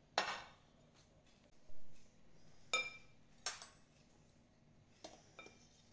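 A metal spoon clinking against glass bowls: about five sharp clinks with a brief glassy ring, the loudest just after the start, plus a short softer knock or scrape about two seconds in.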